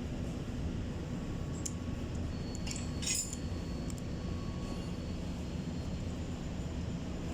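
Metal clinking of tools and engine parts during cylinder-head removal: a few sharp clinks around the middle, one ringing on for a couple of seconds, over a steady low hum.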